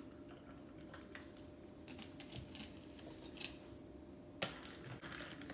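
Faint crackle and ticking of club soda fizzing over ice in a stemmed glass, with one sharp clink of a spoon against the glass near the end.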